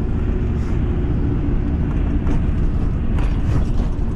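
Pickup truck driving along a rough back road: steady engine and road rumble, with a few brief knocks.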